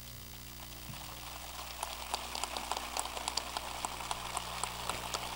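Audience applauding, starting faintly about a second in and growing, with many separate hand claps standing out.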